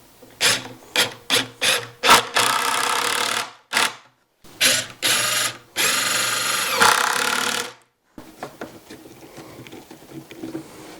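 Power driver sinking 2-inch wood screws into wood: several short trigger bursts, then two runs of a second or two each as screws drive home. It stops abruptly about three-quarters of the way in, leaving light handling clatter.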